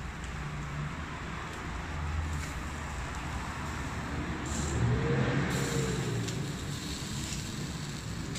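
Pork chops sizzling on a charcoal grill, over a steady low rumble that swells briefly about halfway through.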